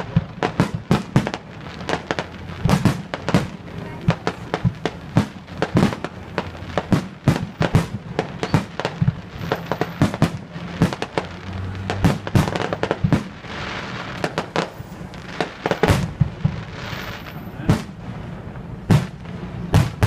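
Fireworks display: aerial shells bursting in a rapid, irregular string of bangs, several a second, with no let-up.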